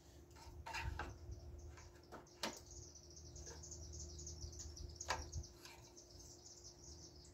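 Faint clicks and knocks from the dipstick being handled and pulled out of a push mower's oil fill tube during an oil-level check. A steady high chirping comes in about two and a half seconds in.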